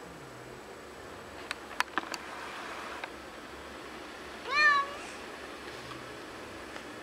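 A Bengal cat gives one short meow about four and a half seconds in, rising then falling in pitch. A few sharp clicks come a couple of seconds before it.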